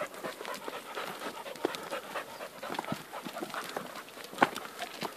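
Hunting dog panting as it trots, with footsteps crunching and clicking on loose stony ground and one sharper knock of stone about four and a half seconds in.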